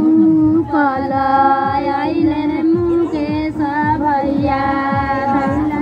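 A Bhojpuri song: a high voice sings long held notes over a quick beat of low, falling drum hits.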